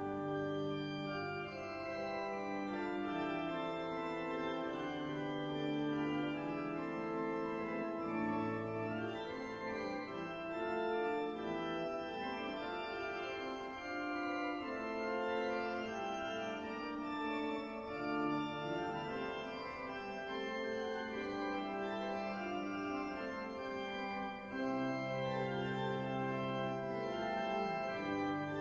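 Durham Cathedral's pipe organ playing a classical piece: sustained chords with several moving voices over long-held low pedal notes.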